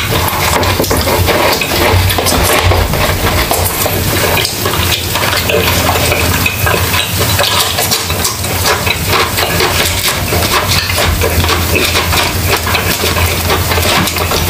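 Close-miked eating sounds: wet chewing and mouth noises, with a spoon clicking and scraping against a plastic cup and dishes, as a dense crackle of small clicks.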